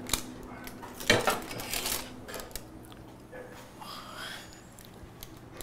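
A baking dish being lifted off an oven rack and carried, with a few clattering knocks of dish and metal rack, the loudest about a second in.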